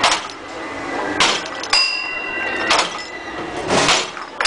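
Sledgehammer blows on a high striker (strongman bell game), a heavy knock about once a second. Twice the bell at the top of the tower rings out, a clear ringing tone that lingers about a second: about two seconds in and again at the very end.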